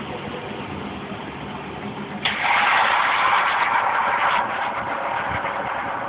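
Zanussi Z630INOX front-loading washing machine running with a steady low hum. About two seconds in a loud hiss starts suddenly, then eases off after about two seconds and carries on more quietly.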